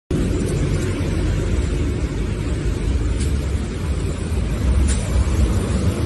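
Low, steady rumble of pickup truck engines idling.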